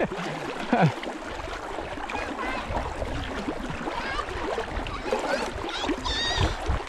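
Water sloshing and gurgling around a person moving through shallow water, over a steady low rumble.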